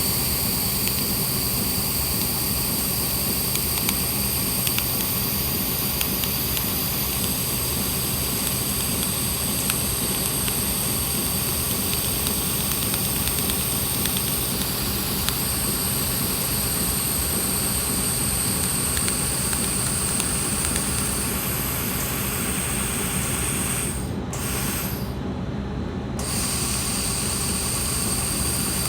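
Handheld laser welding machine running: a steady hiss with several high-pitched whining tones, the high part cutting out briefly twice a little over three-quarters of the way through.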